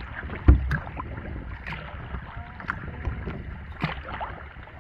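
Wooden kayak paddle dipping into and pulling through lake water, with short splashes and drips about once a second, the strongest about half a second in, over a low steady rumble.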